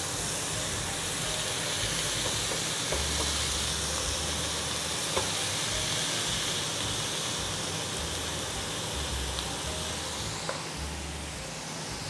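Chopped pork sisig sizzling steadily on a hot oiled sizzling plate over a gas flame, with a few light clicks of a spatula spreading it across the plate.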